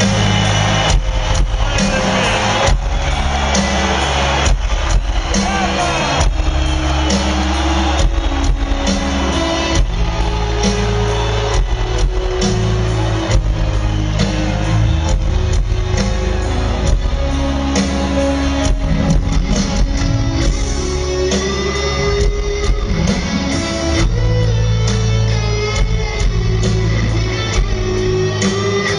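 A live rock band playing an instrumental, led by an electric guitar playing a melodic lead of held and bent notes over bass and drums, heard through an arena PA from the crowd.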